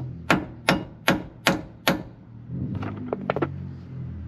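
Six sharp hammer blows on metal in quick succession, about two and a half a second, then a few lighter metallic clicks.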